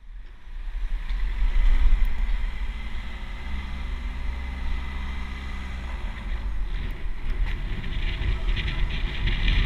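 Street traffic heard from a moving bicycle: a steady low road rumble, with a car engine humming close by for a few seconds in the middle. Wind noise on the microphone builds near the end.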